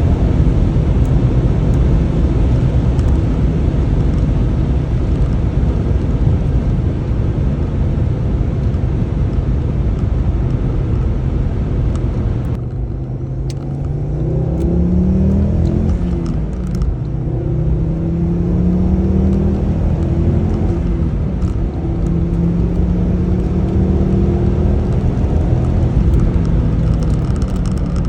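Ford Focus ST225's turbocharged 2.5-litre five-cylinder engine under way. It starts as a steady, noisy rumble. About halfway through it accelerates hard through the gears, its note climbing and falling back at each shift, three pulls in a row.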